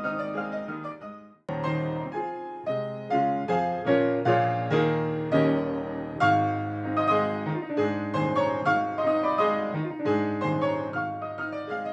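Classical piano played fast with many dense notes: a Yamaha upright piano for about the first second and a half, cutting off abruptly, then a grand piano playing on.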